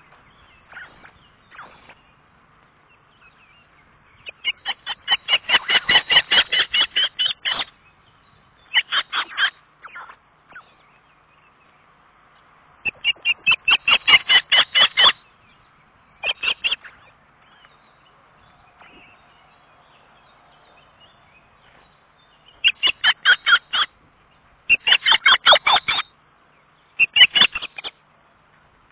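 Adult osprey calling at the nest: loud bouts of rapidly repeated short chirping notes, several a second. There are about seven bouts, each lasting from half a second to three seconds, with a pause of several seconds in the middle.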